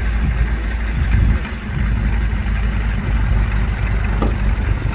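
Piston aircraft engine running steadily, a low, even drone.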